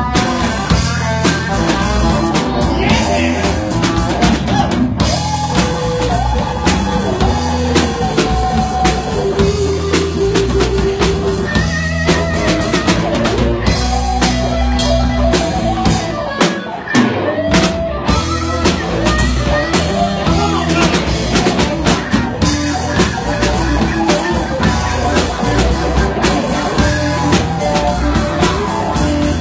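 Live blues-rock band playing: drum kit and bass with electric guitar, sustained bending lead notes over the beat.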